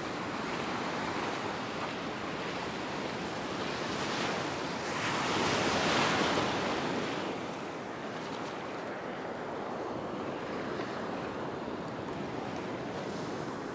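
Ocean surf washing onto a sandy beach, a steady rush of water, with a wave breaking and surging louder about five seconds in before falling back.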